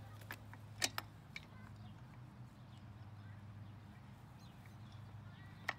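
A few sharp clicks and knocks of the Treasure Garden AKZ cantilever umbrella's metal hinge parts being fitted back together, clustered about a second in and once more near the end, over a steady low hum with faint bird chirps.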